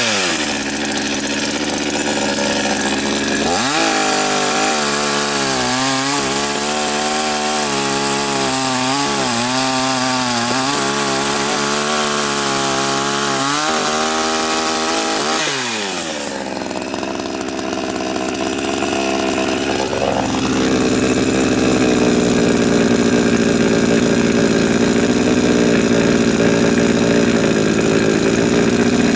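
Chinese 52cc two-stroke chainsaw with an 18-inch bar cutting through a stack of willow logs. It drops back at the start, then revs up and cuts for about twelve seconds, its engine pitch wavering and bogging under load. It falls back to idle, revs up again at about twenty seconds and holds high revs until it drops near the end.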